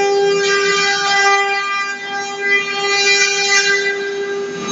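CNC router spindle running with a steady high-pitched whine made of one tone and its overtones, over a rough hiss that swells and fades a couple of times.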